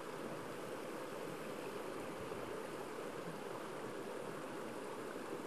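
Faint, steady rush of flowing water from the stream beside the bank.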